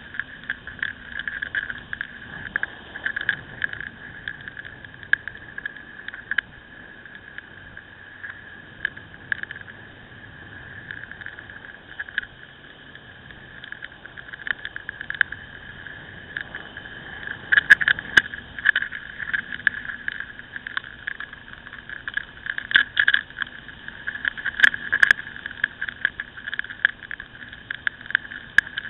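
Ducati Scrambler motorcycle on the move, heard through a rider-mounted camera: a steady, muffled rush of wind and road noise with frequent rattling clicks that grow busier and louder about two-thirds of the way through.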